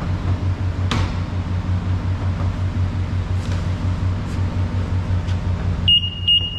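Steady low mechanical hum with a fast, even throb, with a few faint clicks. Near the end, two short high beeps come in quick succession.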